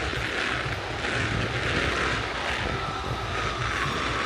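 A steady engine drone with a low throb underneath, unbroken by any sharp sound.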